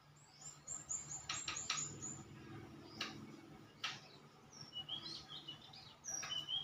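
Small birds chirping: a quick run of high, falling chirps about a second in, then scattered shorter calls near the end, with two sharp clicks in between.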